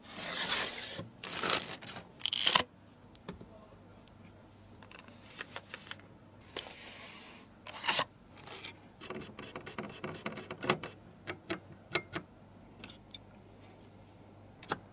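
Handling noises from PC parts being worked on during assembly: scattered sharp clicks, light knocks and scrapes, with louder rustling bursts in the first three seconds and again about eight seconds in.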